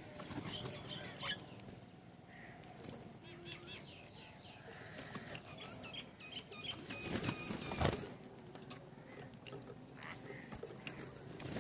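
Birds at a feeder giving scattered short chirps and calls, with small clicks and a louder rustle about seven seconds in.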